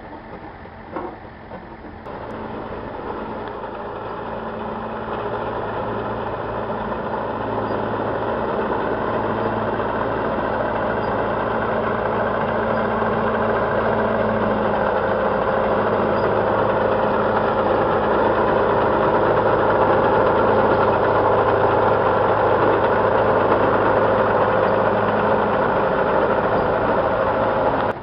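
A large engine running steadily, growing gradually louder over about twenty seconds, then cutting off abruptly near the end.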